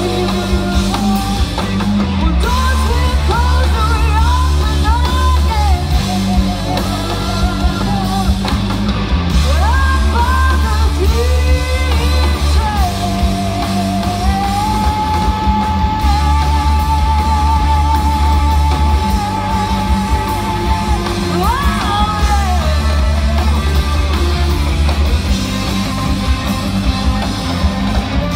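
Live blues-rock band playing loud: drums, bass and overdriven electric guitars through Orange amplifiers. A lead line slides between notes, and a long note is held with vibrato in the middle.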